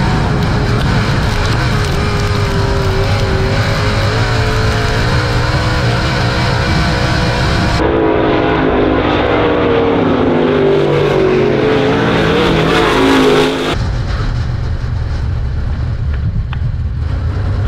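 Dirt late model's V8 engine at racing speed, heard from the cockpit, its pitch rising and falling as the throttle is worked through the corners. About eight seconds in the sound switches to a dirt late model heard from beside the track as it laps past, and about fourteen seconds in it switches back to the cockpit.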